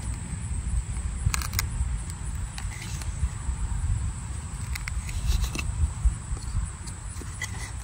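Folding knife carving a divot into a cedar hearth board: a few short scraping cuts into the soft wood, over a steady low rumble.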